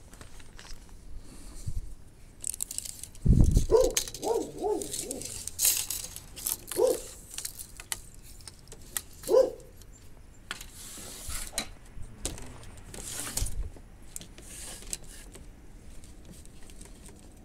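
Hands working with wooden boards and a tape measure: knocks and clicks of wood and the tape, rustling, and a heavy thump about three seconds in. A few short pitched sounds come in between.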